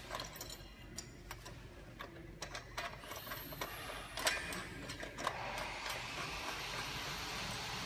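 Light metallic clicks and taps as nuts are threaded by hand onto the bolts of the U-clamps holding a steel post to a road sign. From about five seconds in, a steady hiss rises underneath.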